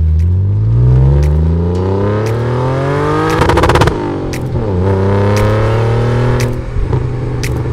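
A car engine accelerating through the gears: its pitch climbs for about four seconds, dips sharply at a gear change, then climbs again before dropping away about a second before the end.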